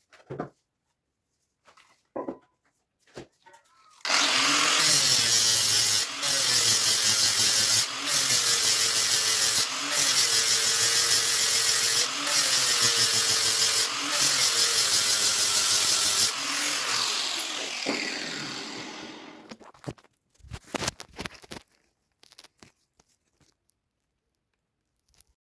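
A handheld power tool's motor running under load for about twelve seconds, its pitch dipping and recovering with brief drops roughly every two seconds, then winding down over a few seconds. Light clicks and knocks of handled parts come before and after.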